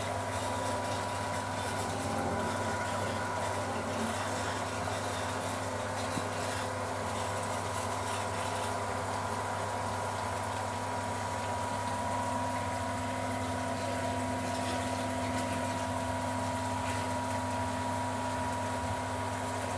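A steady mechanical hum: a constant low drone with a thin, faint whine above it.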